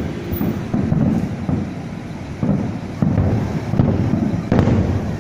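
Fireworks going off in a display, a run of low booms and rumbles, with sharper bangs about three and four and a half seconds in. Wind buffets the microphone.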